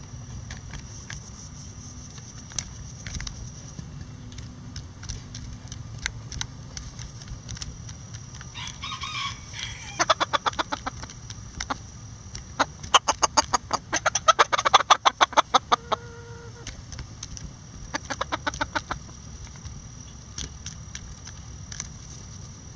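Bantam chickens feeding: scattered clucks and taps, with a short call about a third of the way in, then runs of rapid ticking pulses, about ten a second, that are loudest and densest near the middle.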